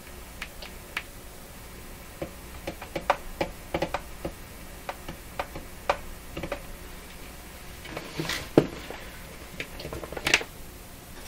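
Irregular clicks and taps as the vintage Hallicrafters S-40A receiver's chassis and wiring are handled, with a sharper click about eight and a half seconds in. Under them runs the receiver's steady faint low hum, the power-line hum that is being tested with the filter capacitor.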